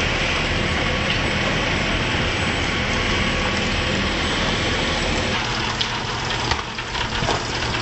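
Fishing boat's engine running steadily under wind and water noise. About five seconds in the engine sound drops back and a few sharp knocks come through.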